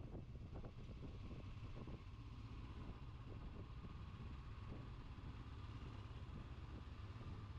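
Honda CB500X motorcycle's parallel-twin engine running steadily on the move, a low rumble with a thin steady tone above it.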